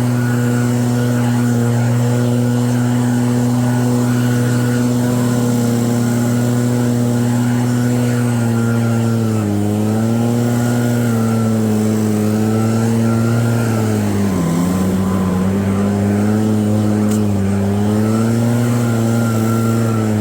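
EB7660RED snow blower engine running steadily. From about halfway through, its pitch sags briefly a few times, most deeply about three-quarters of the way in.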